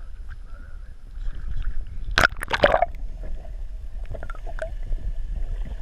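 Water sloshing and gurgling against a boat over a low steady rumble, with a short loud burst of splashing about two seconds in.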